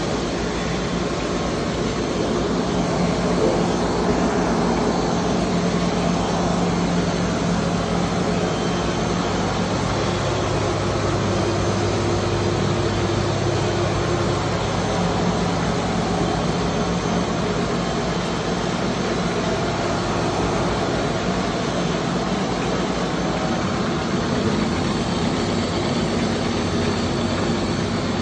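Fethy automatic rotary compression machine running steadily: a continuous mechanical hum over an even machine noise.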